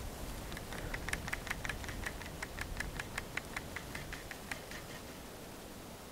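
Fishing reel being wound in, a quick even train of clicks about five a second that fades out near the end, over a low steady rumble.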